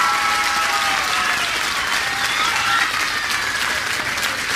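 Audience applauding steadily, with a few voices calling out over the clapping near the start.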